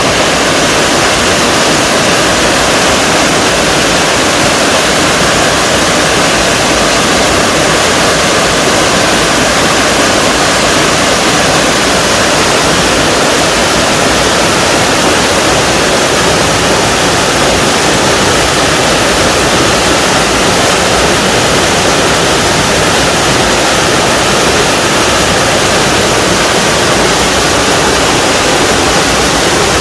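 Small waterfall in a mountain stream, water pouring and rushing steadily and loudly.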